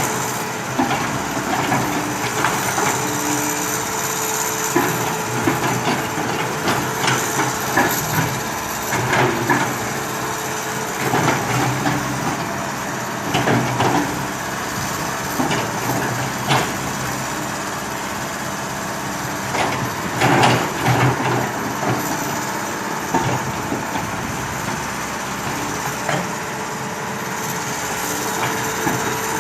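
Backhoe engine running steadily, with irregular knocks and clatter of the working machine scattered through, the loudest about twenty seconds in.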